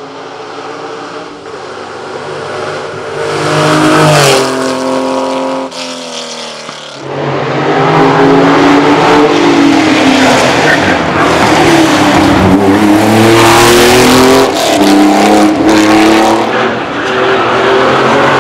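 Air-cooled flat-six engine of a Porsche 911 2.3 ST racing flat out on a hillclimb, growing louder as the car approaches. About four seconds in it lifts off briefly, then comes back in at full revs, the pitch rising and falling through the gears as the car passes close by.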